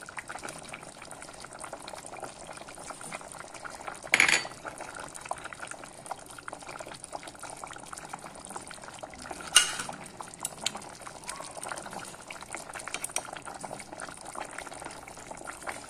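Pot of meat and Jerusalem artichoke stew simmering, a steady bubbling with fine ticks. Two sharp clinks stand out, about four seconds in and near ten seconds.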